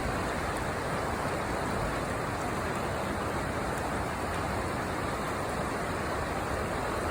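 Steady rushing of river rapids: an even, unbroken noise of fast-moving whitewater.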